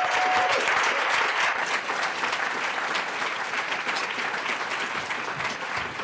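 Audience applauding, loudest in the first second or two and slowly tapering off.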